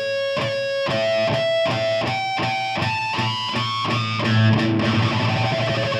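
Electric guitar on a distorted high-gain tone playing natural harmonics one after another up the A string's overtone series, each plucked note a step higher, about three a second. About four seconds in, a lower distorted note rings on.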